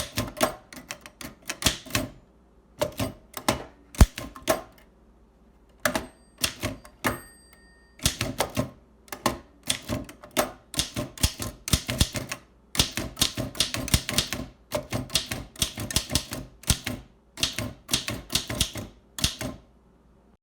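Oliver typewriter being typed on: bursts of rapid keystrokes with short pauses between them, and a brief ringing tone about six seconds in.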